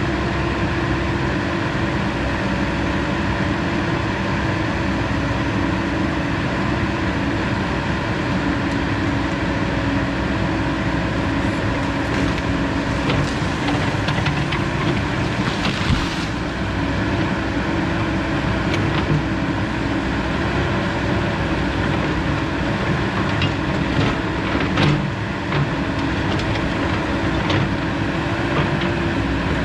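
Cat 308 mini excavator's diesel engine running steadily under work, a steady pitched hum over the engine noise, with a few short knocks and snaps midway and again a little past two-thirds of the way.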